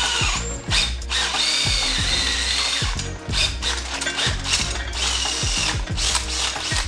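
Cordless drill with a 1/2-inch twist bit drilling out a hole in an aluminum floor jack's frame. The motor whines in several spurts, stopping and starting again.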